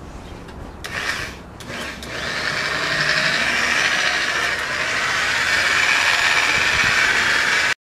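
Handheld electric car buffer running with its pad on the painted hood, spreading carnauba wax. Two short bursts about a second in, then the motor runs steadily from about two seconds in, growing louder and holding before stopping abruptly near the end.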